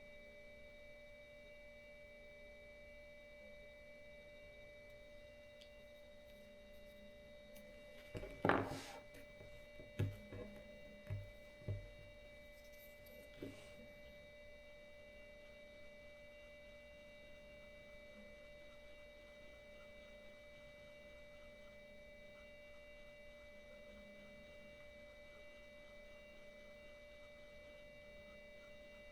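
A faint steady electronic whine of several held high tones, with a short cluster of handling knocks and bumps about eight to twelve seconds in, the first the loudest.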